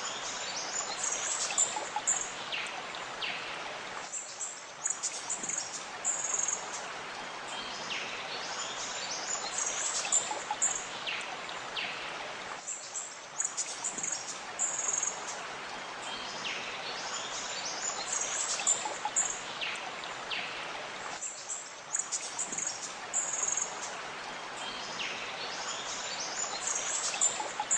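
Nature ambience recording of birds chirping and singing over a steady rush of running water, repeating in a loop about every eight and a half seconds.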